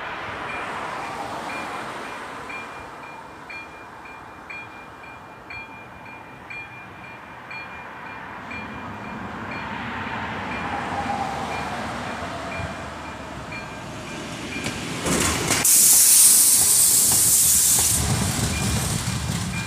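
Level-crossing warning bell ringing about once a second while rail noise from an approaching train slowly builds. A loud hissing rush takes over about three seconds from the end.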